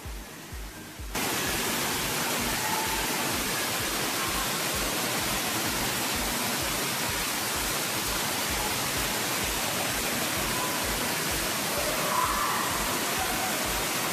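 Steady rush of water pouring from a pool's mushroom fountain and waterfall columns, starting suddenly about a second in.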